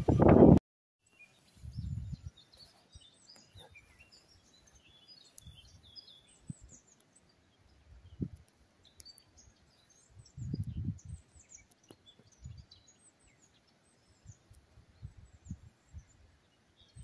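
Small birds singing and chirping in scattered short high calls, with a few soft low rumbles in between. The rumble of a passing train cuts off suddenly about half a second in.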